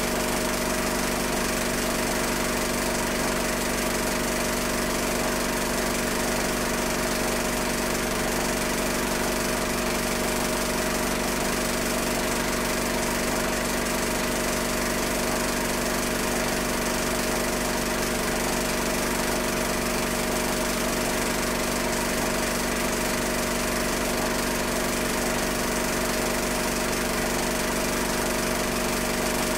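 Steady mechanical hum with several fixed tones over a hiss, unchanged through the scene cuts: the running noise of a film projector, picked up when the silent home movie was transferred, not the sound of the streetcars.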